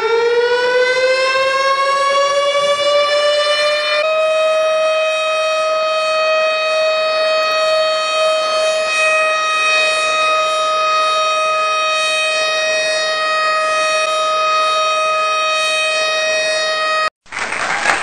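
Ship's machinery space CO2 alarm siren: a tone that rises in pitch over the first few seconds, jumps to a steady high tone and holds it, then cuts off suddenly near the end, where applause comes in. This alarm sounds when the CO2 release cabinet door is opened, warning of CO2 flooding of the engine room.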